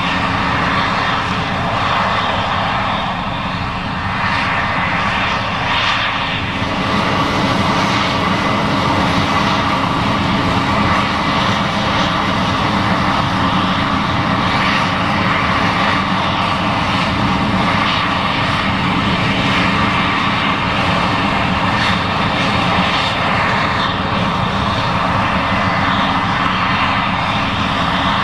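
Case IH 7140 Axial-Flow combine running steadily under load while harvesting corn: a dense, even machine drone with a constant whine on top.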